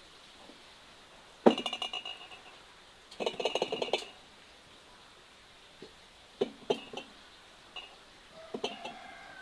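Clinking of glass jars and metal pails being handled. A sharp knock with a short rattle comes about a second and a half in, a longer run of ringing clinks follows around three and a half seconds, and a few lighter clinks come near the end.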